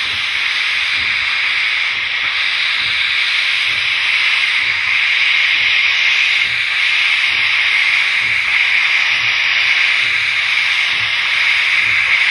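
Steam locomotive pulling away slowly with its cylinder drain cocks open: a loud, steady hiss of venting steam, over faint low exhaust beats about once a second.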